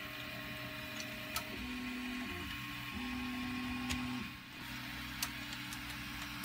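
Faint whine of a small electric motor, coming and going in stretches of about a second at a couple of steady pitches, over a low hum, with a few light clicks of plastic parts being handled.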